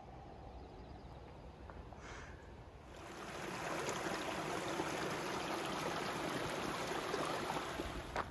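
Small shallow mountain creek running over rocks: a steady rush of water that comes in about three seconds in, after a faint quieter start.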